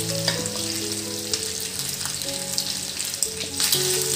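Skin-on chicken pieces frying in a little oil in a nonstick frying pan, a steady sizzle with crackles, under a soft background melody.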